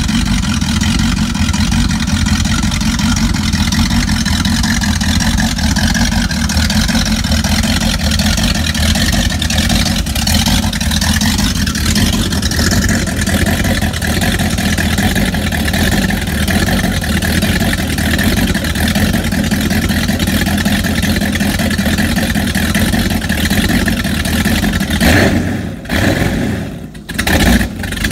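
Engine of a 1977 Glastron CVX-20 speedboat running steadily on its trailer, with water splashing from the stern drive. The sound drops away briefly near the end.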